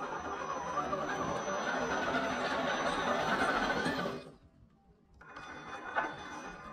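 RC crawler trucks with brushless electric motors, their motors and gears whining and their tyres grinding over loose sandy dirt as they climb. About four seconds in the sound drops out for about a second, then comes back quieter, with a sharp click near the end.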